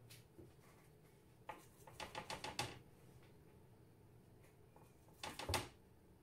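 Light clicking taps in quick runs: a single click, then about six in rapid succession around two seconds in, and a louder short cluster near the end.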